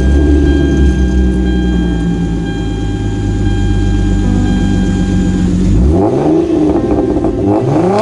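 Hyundai Genesis Coupe engine idling just after start-up, then revved twice, about six and seven and a half seconds in, each rev rising and falling back.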